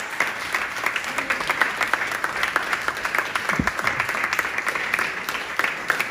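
Audience applauding, many hands clapping at once, with one brief low thump a little past halfway.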